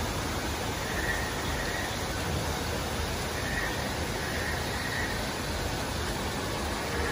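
Steady rushing outdoor background noise, with a few faint high chirps a second or two apart.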